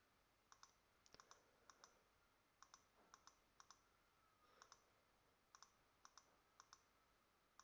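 Faint computer mouse clicks, mostly in quick press-and-release pairs, about a dozen pairs spaced unevenly through the few seconds.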